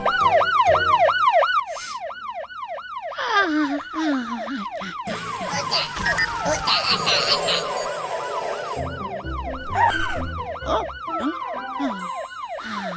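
Cartoon siren sound effect: a fast yelping wail that sweeps up and down about four times a second, with other swooping sound effects layered over it.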